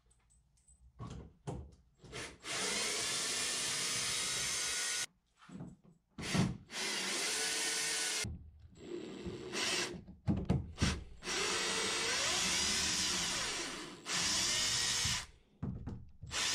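Cordless drill-driver backing old screws out of a canoe's wooden gunwales. It runs in several steady stretches of one to two and a half seconds, with short stop-start bursts between them as it moves from screw to screw.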